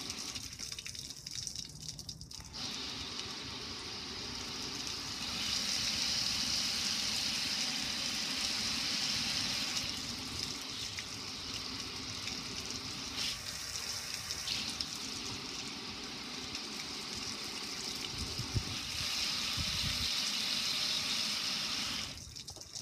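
Water spraying onto a metal gas grill and pouring off it onto concrete, a steady gushing splash that grows louder for several seconds twice.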